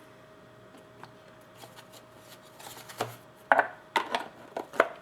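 Packaging of a hockey card pack being handled and worked open. It is quiet at first, then about halfway through comes rustling and a run of short, sharp scrapes and clicks as the tight-fitting cards are pulled out.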